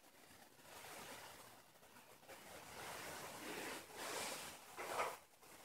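Faint rustling of kimono cloth and soft handling of a small dish set down on tatami, with a brief louder rustle about five seconds in.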